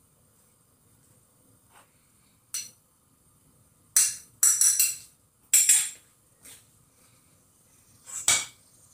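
Metal kitchenware clinking and clattering in a handful of short, sharp knocks, most of them bunched in the middle and one more near the end.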